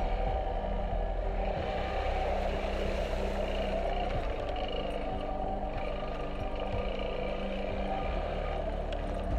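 Yamaha XT250 Serow's air-cooled single-cylinder four-stroke engine running steadily as the bike rides over a rocky gravel trail.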